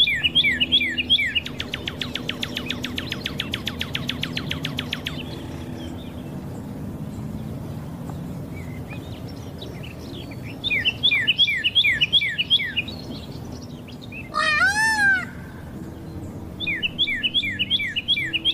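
Birdsong chirping in repeated quick falling notes, with a fast trill for a few seconds near the start. About two-thirds of the way through comes one loud, wailing peacock call lasting about a second.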